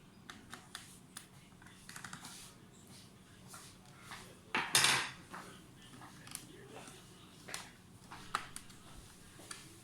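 Hands handling a laptop and its packaging: scattered light clicks and taps of hard objects, with one louder rustling scrape lasting under a second about halfway through.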